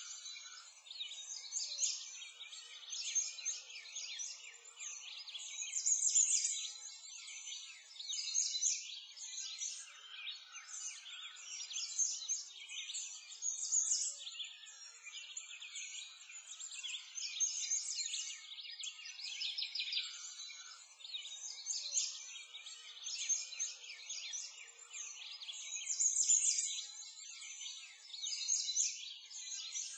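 A continuous high-pitched chorus of chirping birds and insects, a nature ambience laid over the render, swelling and fading every couple of seconds.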